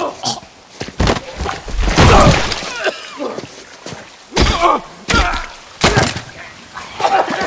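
Close-quarters fight sound effects: a string of thuds and blows, about one a second, with strained grunts and groans between them.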